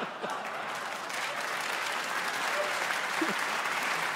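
Audience applauding, the clapping growing a little louder after about a second.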